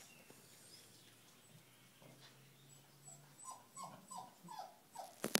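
Small dog whining, a run of about five short falling whimpers in the second half, wanting into a dog carrier that another dog is sleeping in. A single sharp click comes near the end.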